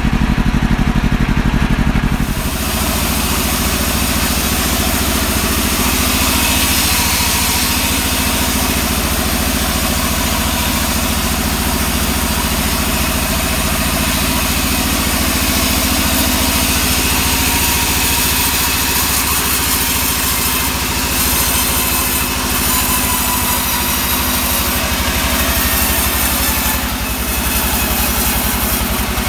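Engine-driven band sawmill running steadily, its engine humming under the hiss of the blade ripping through a sengon log. The cutting hiss comes in about two seconds in.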